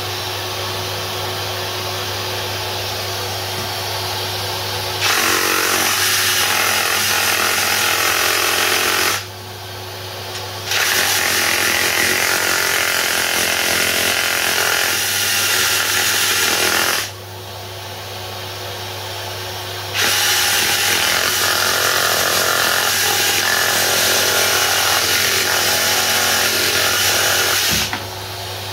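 Ryobi 18V HP brushless one-handed reciprocating saw cutting through a length of treated 70x45 timber in three long runs, starting about five seconds in, each stopping abruptly with a short pause before the next.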